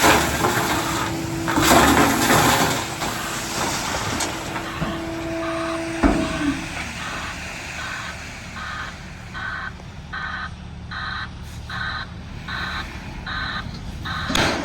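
Tri-axle dump trucks running while unloading asphalt millings, with a rushing hiss in the first few seconds and one sharp bang about six seconds in. From about eight seconds a truck's reversing alarm beeps about twice a second.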